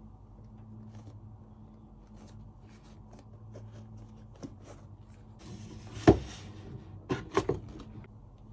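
Adidas Predator Accuracy turf boots being handled and set down on a cardboard shoebox: light rustles and taps, one loud knock about six seconds in and a few smaller knocks about a second later, over a steady low hum.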